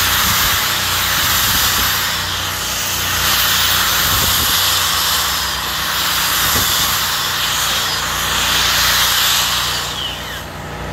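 Angle grinder with a wire wheel brushing a weld bead on structural steel, a steady harsh hiss that swells and eases as the wheel is worked along the joint, with a brief dip near the end. This is the weld being cleaned of slag and spatter between passes.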